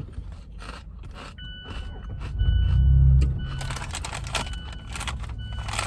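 Crinkling of a kettle-chip bag and crunching of chips being eaten, a string of short crackles. A low rumble swells about two and a half seconds in, and a faint steady high tone sounds on and off through the second half.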